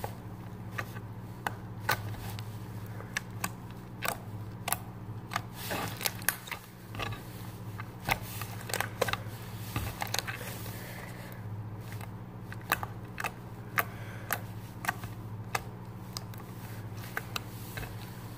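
Homemade clear-glue slime being squeezed and stretched by hand, making irregular sticky clicks and pops, over a steady low hum.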